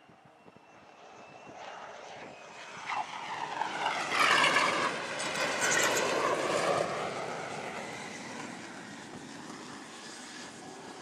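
F-35C Lightning II jet engine making an arrested carrier landing. The whine and rush grow as it comes in, are loudest from about four to seven seconds in with a shifting pitch, then die down as the jet settles on the deck.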